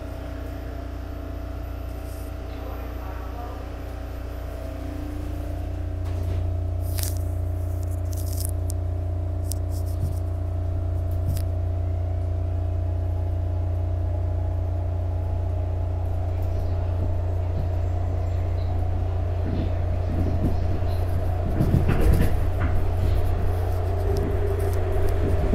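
Inside a SEPTA Market-Frankford Line subway-elevated train car pulling out of the station: a steady low hum with motor tones above it. It grows louder a few seconds in as the train picks up speed, with wheel and car-body rattles near the end.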